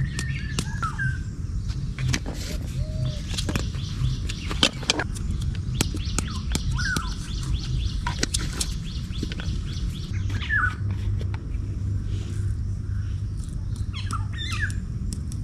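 Birds chirping now and then, a few short calls spread through the stretch, over a steady low rumble and scattered light clicks.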